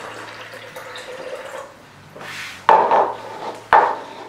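Water poured from a small plastic cup into the clear plastic tank of a toy tornado tower, a low trickle and splash. Near the end come two sharp knocks about a second apart, the loudest sounds.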